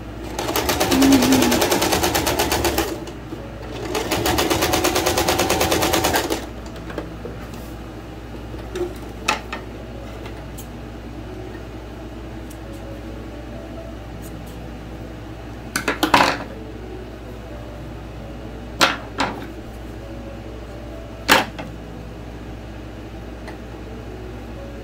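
Electric sewing machine stitching a hem on a gathered, elastic-thread waistband, in two quick runs of about two and a half seconds each with a fast, even rattle. After that come a few scattered sharp clicks and knocks.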